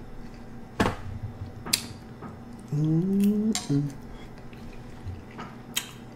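A metal fork clinks a few times against a glass baking dish. About three seconds in comes a loud closed-mouth "mmm" hum of enjoyment through a mouthful of food; its pitch rises, then drops back.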